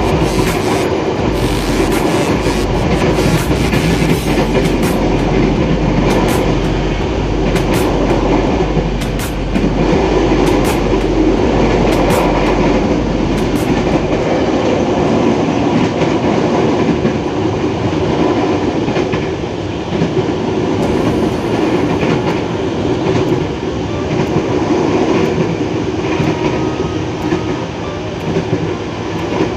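Electric commuter train (KRL) running along the line: a steady rumble of wheels and motors, with sharp clicks during the first half.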